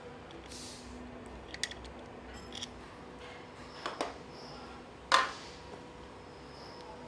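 A few light clicks and knocks from hand tools and small metal parts being handled at a workbench, the loudest a sharp knock about five seconds in, over a faint steady workshop hum.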